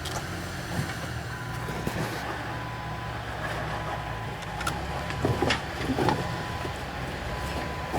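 Rock-crawling 4x4's engine running steadily at low revs, with a few sharp knocks about five to six seconds in.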